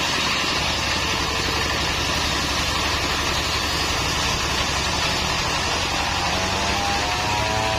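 Stationary diesel engine running steadily under load, driving a circular saw blade through a mahogany beam. Near the end a rising whine sets in as the engine and blade pick up speed.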